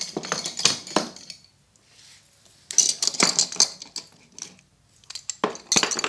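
Screwdrivers with steel shafts and wooden handles being handled and set down, clinking and knocking against each other and the table in three short clusters of clatter.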